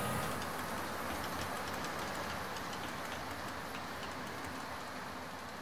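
An HO-scale model freight train of reefer cars running past on its track, with a steady rolling rumble and light clicking of wheels over rail joints. It fades as the last cars and the caboose go into a tunnel.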